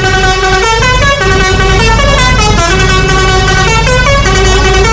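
Bus musical horn playing a tune, one tone rich in overtones stepping up and down between notes every few tenths of a second, over a steady low rumble from the moving vehicle.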